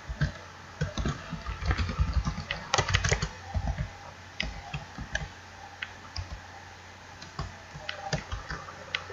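Typing on a computer keyboard: irregular keystrokes, a quick run of them in the first few seconds, then fewer, more scattered taps.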